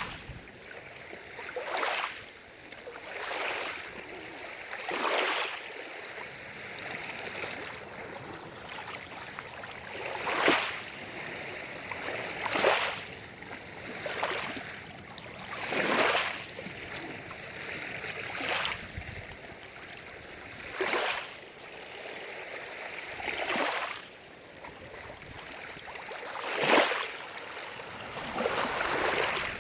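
Small lake waves lapping and splashing against the shore, a fresh wash every two to three seconds over a steady trickle of water.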